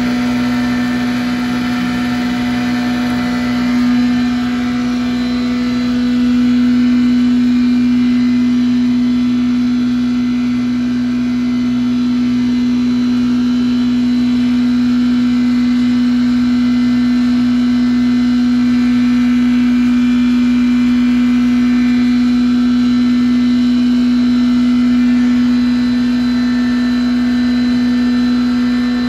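Groundnut husk grinder machine running loudly and steadily, with a strong, even hum as peanut shells are fed into its hopper.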